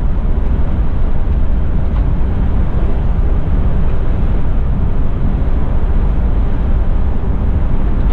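Steady cabin drone of a Mercedes-Benz Tourismo coach cruising at motorway speed, heard from the driver's seat. The low engine and driveline hum is mixed with tyre noise on a wet road, with no change in pitch or level.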